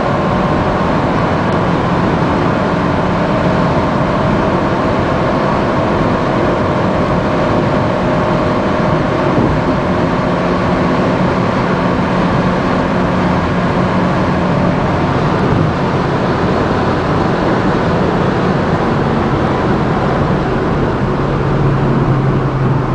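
Cabin noise of a 2010 Volkswagen Voyage 1.0 cruising flat out on the highway at about 140–160 km/h. Its small four-cylinder engine drones steadily under heavy tyre and wind noise, and a lower hum comes in near the end.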